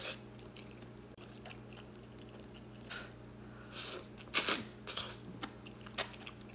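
A person chewing and biting food close to the microphone. It starts faint, then a few short crunchy, wet bites and mouth clicks come from about four seconds in.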